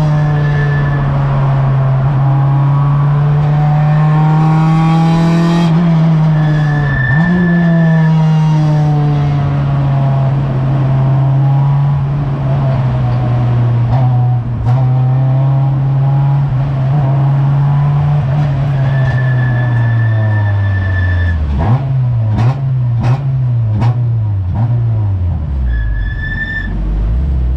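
Racing car engine heard from inside the cockpit, running at steady high revs along a straight, then dropping in a series of stepped downshifts about three-quarters of the way in and settling to low revs near the end. Short high-pitched squeals come through a few times, with some clicks during the downshifts.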